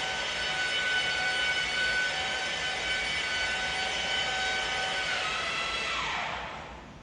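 Electric rotary polisher used for buffing scratches out of glass, running at a steady whine, then switched off about five seconds in and winding down, its pitch falling as it fades out.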